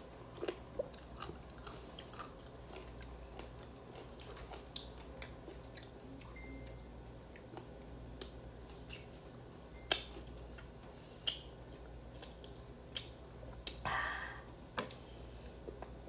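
A person chewing crisp raw green mango, with scattered sharp crunches and clicks.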